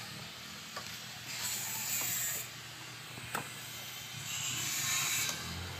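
Hands working a hose off a Suzuki Alto 800 throttle body: a few light clicks and knocks, with two stretches of hiss each about a second long.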